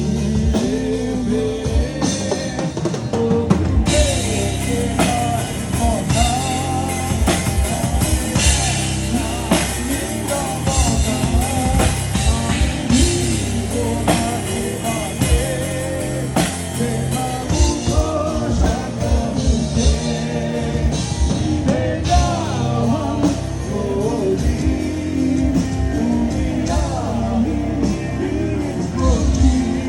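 Rock band playing live through a PA: a drum kit, bass and guitars under a bending melodic lead line, an instrumental stretch of the song with no words.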